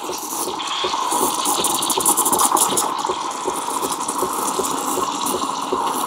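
Steam wand of a KitchenAid KES6404 semi-automatic espresso machine hissing into milk in a stainless steel pitcher as it steams and froths the milk. A steady hiss runs under a rapid crackle of small pops.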